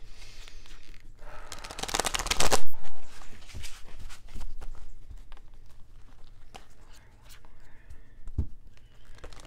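A tarot deck being shuffled by hand, the cards flicking and slapping together, with a dense, loud burst of rapid flicking about two seconds in and scattered lighter card clicks after.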